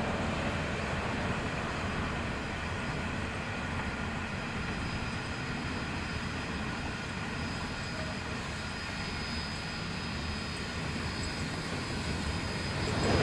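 Steam locomotive 3526, a C35-class 4-6-0, approaching slowly: a steady low noise of the train that grows louder near the end as the engine draws close.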